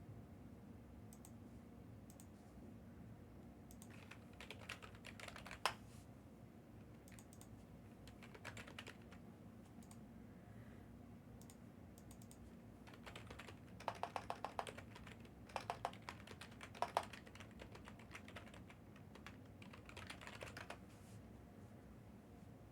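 Faint typing on a computer keyboard, in several short bursts of rapid key clicks with pauses between them.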